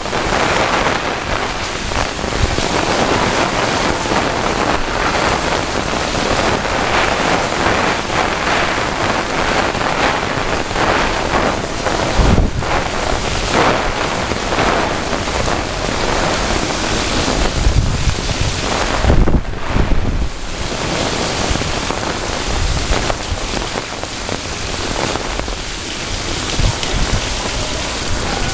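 Strong gusty wind blowing hard across the microphone: a constant loud rushing noise that surges and falls, with heavy low buffeting in the stronger gusts, around the middle and again a few seconds later.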